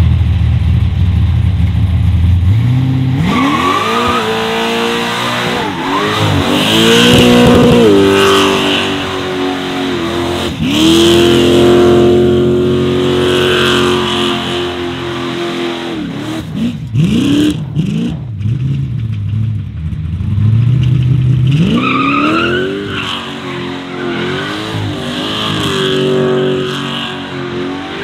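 A modified V8 car engine idles low for about three seconds, then is revved up and held at high revs for long stretches, with quick blips and drops in between, climbing back up near the end. This is a power skid (burnout), the engine held on the rev limit while the rear tyres spin.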